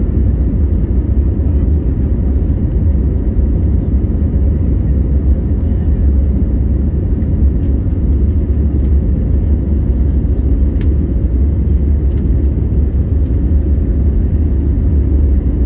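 Steady low rumble of an airliner's jet engines and rushing air heard inside the passenger cabin during the climb after takeoff.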